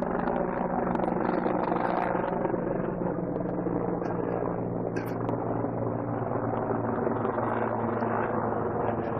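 A steady, low engine-like drone with a noisy hiss over it.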